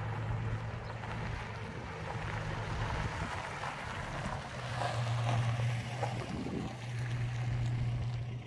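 Toyota pickup engine running with a steady hum while it pulls a second pickup on a tow bar, with wind noise on the microphone.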